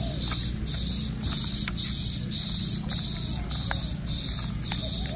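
A high chirp repeating about twice a second, with a dove cooing near the end over a steady low hum. Small plastic clicks come from a AA battery being pushed into a toy train locomotive's battery compartment.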